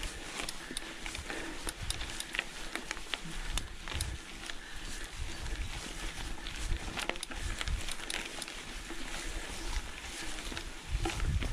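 Mountain bike ridden over a bumpy grass track: tyres rolling on grass with many quick clicks and rattles from the bike, and uneven low rumbling that grows heavier near the end.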